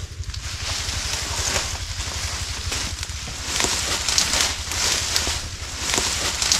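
Leaves and branches rustling and crackling in repeated bursts as someone pushes into a bush, heavier in the second half. Under it runs a steady, evenly pulsing low rumble.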